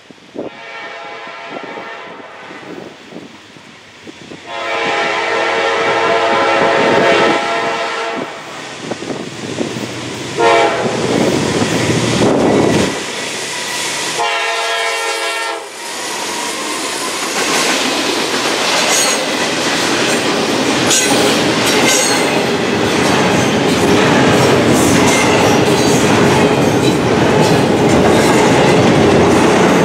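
Norfolk Southern GE D9-40CW diesel locomotive's horn blowing long, long, short, long, the standard grade-crossing signal, growing louder as the train approaches. The locomotive then passes close by, and double-stack intermodal cars roll past with steady wheel-on-rail rumble and rapid clicking over the rail joints.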